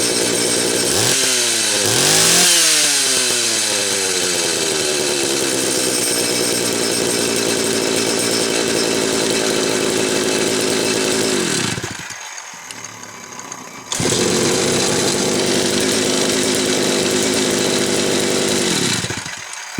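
Homelite 330 two-stroke chainsaw engine running after a carb kit and new fuel hoses: revved up and back down about a second in, then running steadily. The sound drops away sharply for about two seconds before the middle, comes back suddenly at the same steady speed, and winds down near the end.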